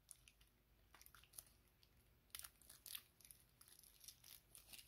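Faint crinkling of thin clear plastic wrap being peeled off an action figure by hand, in short scattered crackles.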